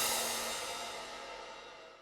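Closing background music ending on a cymbal wash that fades away.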